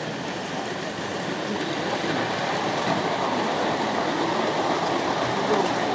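O gauge tinplate model train running over three-rail metal track. Its running noise grows louder about two seconds in as it passes close by.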